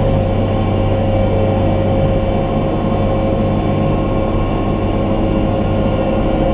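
Resort ferry boat's engine running steadily while under way, heard from aboard: an even drone with a few fixed hum tones and no change in level.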